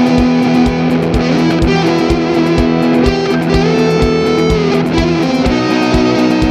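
Instrumental music with sustained guitar-like notes over a steady beat of about two hits a second.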